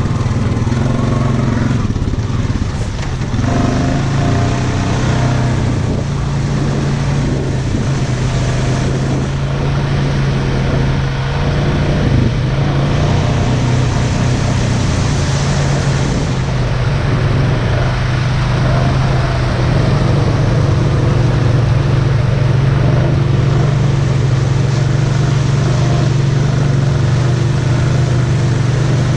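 ATV engine running steadily under way on a mud trail, a constant low engine hum that gets slightly louder about two-thirds of the way through.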